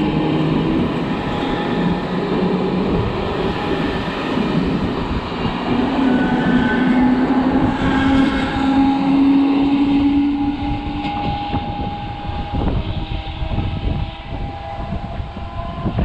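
A train passing close by: steady running noise with a whine of several held tones over it, easing off after about twelve seconds.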